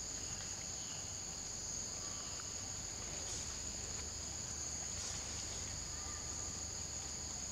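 Steady, unbroken high-pitched drone of insects, sounding in two close pitches.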